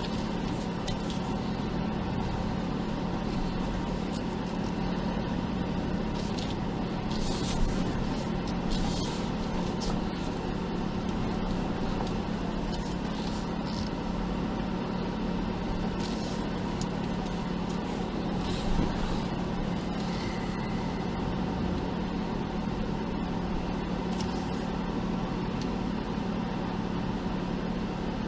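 Off-road Jeep engine running steadily during a slow rock climb, with a few brief knocks or scrapes about 7 to 9 seconds in and again near 19 seconds.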